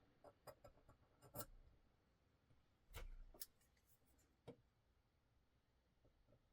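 Faint, scattered clicks and light taps of small metal parts being handled while a folding knife's pivot and bearings are put back together, with near silence between them.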